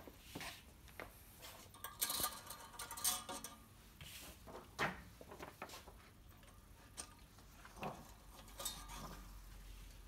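Paper sheets and their metal wire binding being handled and slid into a wire-closing machine's slot: paper rustling with a series of light clicks and metallic clinks, busiest about two to three and a half seconds in.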